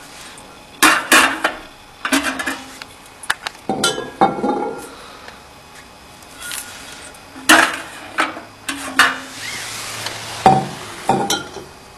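Glass wine bottles clinking and knocking against each other and a plastic crate as they are handled and set down: a string of about ten sharp clinks and knocks.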